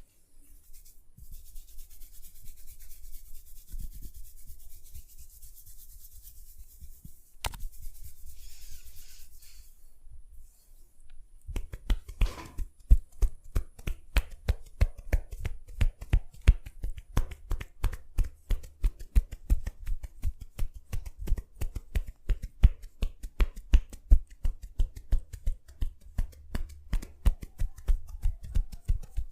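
Massage on a head: hands rubbing over the hair and scalp with a hissing friction sound and one sharp click. About a third of the way in this gives way to fast rhythmic slaps, about four a second, each with a dull thump, typical of the percussive patting in an Indian head massage.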